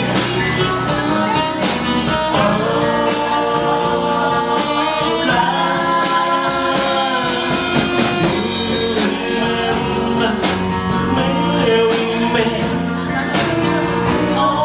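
Live rock'n'roll band with singing, playing a slow oldies ballad with guitar and a steady drum beat.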